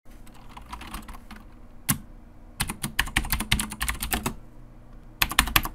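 Computer keyboard typing in runs of key clicks: faint scattered taps at first, a single keystroke near two seconds in, a fast run of keystrokes through the middle, and a short final burst near the end.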